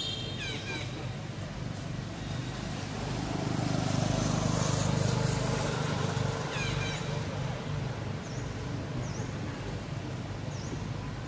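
Outdoor ambience with a vehicle passing: a low rumble swells through the middle and fades again. A few short high chirps come and go over it, some about seven seconds in and more near the end.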